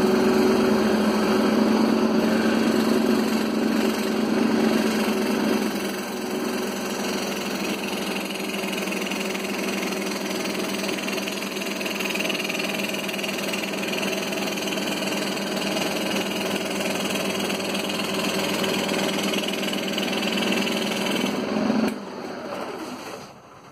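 Scroll saw running, its reciprocating blade cutting through a wooden sheet with a steady machine hum. Near the end the saw is switched off and the sound drops away and fades.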